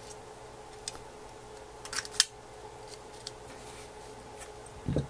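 A few light clicks and taps of small parts being handled and pried during disassembly of an opened iPhone 3GS. The sharpest click comes about two seconds in, and there is a soft low thud near the end, over a faint steady hum.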